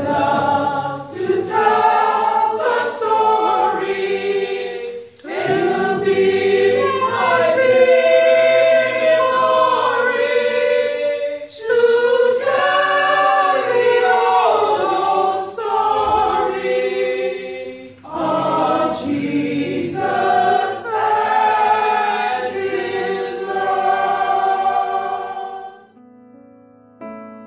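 A group of men and women singing a song together, in phrases with short breaks between them. The singing stops about a second and a half before the end.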